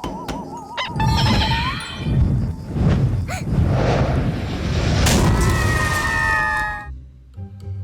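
Cartoon sound effects over background music: a long, loud rumbling crash with sharp hits mixed in. It cuts off abruptly near the end, leaving the music.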